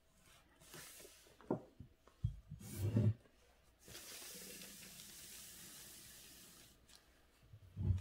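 Handling of calligraphy paper and brush: short rustles and soft thumps, then a steady hiss for about three seconds as the paper slides across the desk, and another thump near the end.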